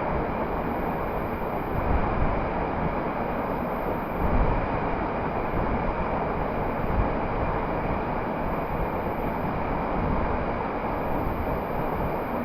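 A steady rushing noise that holds level throughout, with no distinct events.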